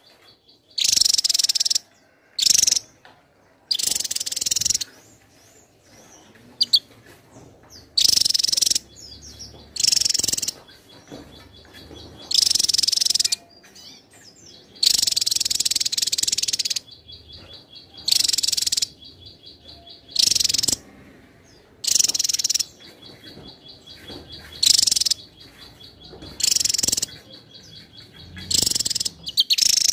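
Javan tesia singing in loud, high-pitched bursts about every two seconds, each lasting well under two seconds. A thin, fast ticking trill runs in the gaps between many of the bursts.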